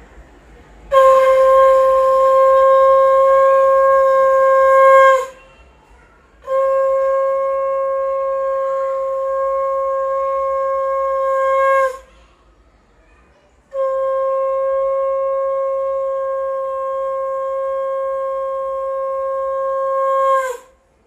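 Conch shell (shankha) blown in three long blasts of one steady note, each lasting about five to seven seconds, with short breaths between, and each sagging slightly in pitch as it tails off.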